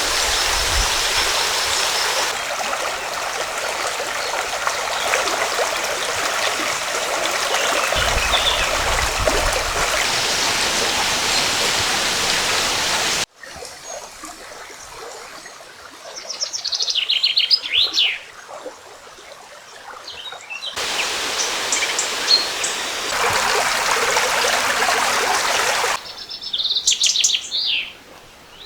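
Rushing river water that stops abruptly about halfway and comes back later, alternating with quieter stretches where a songbird sings short phrases of quick falling notes.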